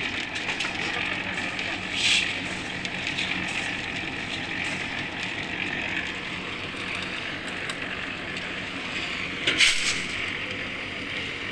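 A machine running steadily, with two brief louder rushing noises: one about two seconds in and one near the end.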